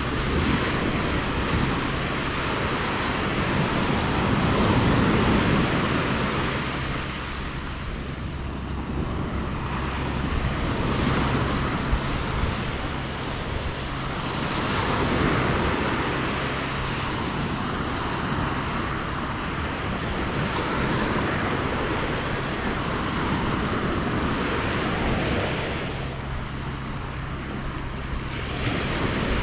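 Atlantic surf breaking and washing up a sandy beach, swelling and easing every few seconds.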